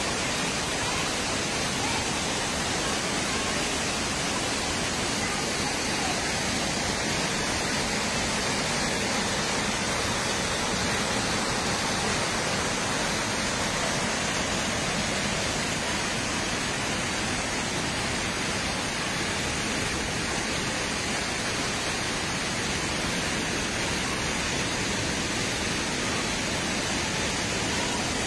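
Waterfall pouring into its plunge pool: a steady, even rush of falling water that does not let up.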